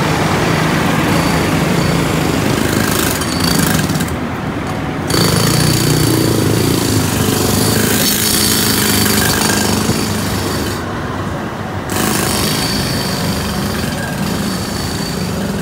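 Jackhammer running in long steady stretches as a crew breaks ground at a trench over a gas leak, with the sound dipping briefly twice.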